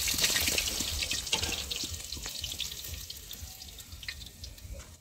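Oil sizzling and crackling in a cooking pan as chillies fry in a tempering (tadka), with fine spattering pops. It fades steadily toward the end.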